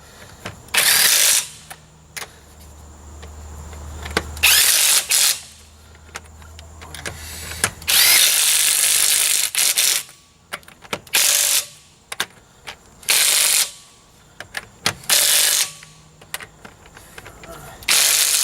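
Ryobi P261 cordless impact wrench working lug nuts in a series of short bursts of hammering, with a low motor drone through the first half.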